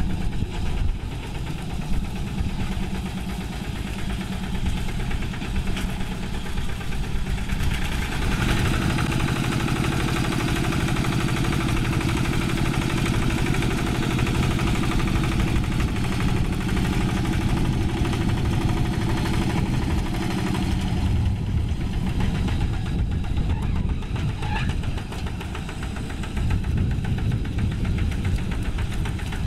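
Single-cylinder diesel engine of a two-wheel hand tractor chugging steadily under load as it pulls through paddy mud. It grows louder about a third of the way in and eases back about two-thirds of the way through.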